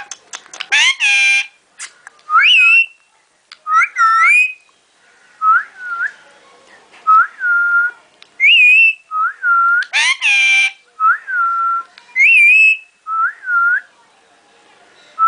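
A pet parrot whistling a long series of short, clear phrases, some notes held level and some gliding up and down, with two loud harsh squawks, one about a second in and one about ten seconds in.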